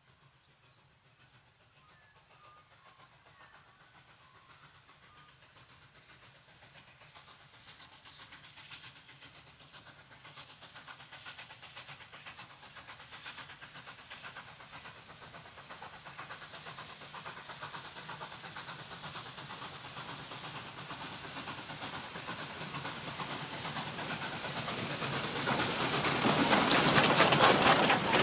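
Victorian Railways K class 2-8-0 steam locomotive hauling a train, its exhaust beats in a steady rhythm, growing steadily louder as it approaches from faint in the distance. Near the end it passes close, loudest, with the clatter of the tender and carriage wheels on the rails.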